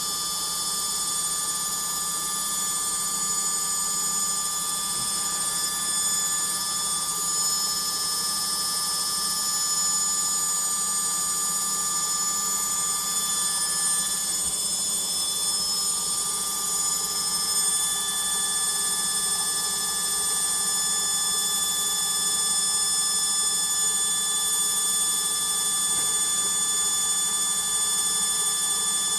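Logik washing machine on its spin, the drum motor giving off a steady, high-pitched whine made of several fixed tones over a low hum. The spin is a noisy one.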